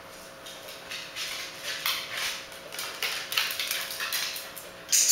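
A corgi's claws clicking and tapping irregularly on a tiled floor as it trots about, with a louder sharp click right at the end.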